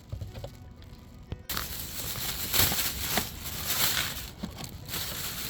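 Rustling, crinkling handling noise that starts abruptly about a second and a half in and swells several times.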